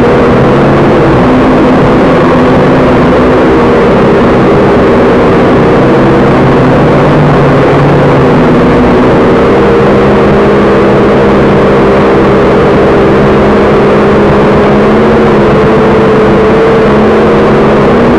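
Background rock music with sustained, distorted electric-guitar notes that shift pitch every few seconds.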